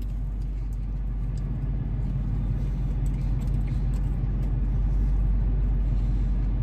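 Steady low rumble of the car idling, heard inside its cabin, with faint small clicks of chewing on top.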